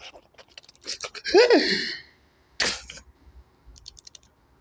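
A short vocal cry about a second and a half in, its pitch rising and then falling over a breathy hiss. A brief sharp noise burst follows about a second later.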